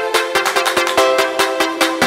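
Music with a fast, steady beat over held synth-like chords.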